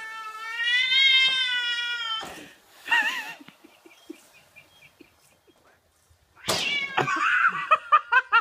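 Domestic cat yowling at a cat-shaped balloon. One long drawn-out call runs through the first two seconds, a short wavering call follows about three seconds in, and a loud, choppy run of calls comes near the end.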